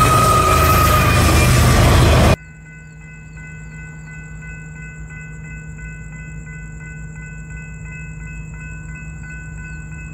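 A Florida East Coast GE ES44C4 diesel locomotive passes with its air horn sounding. About two seconds in the sound cuts off suddenly to a much quieter night background: insects trill and chirp over a steady electronic tone that pulses about twice a second.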